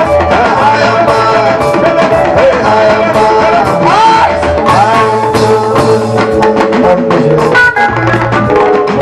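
A bongo music song: a singing voice over a steady bass and drum beat, with horn-like melodic lines.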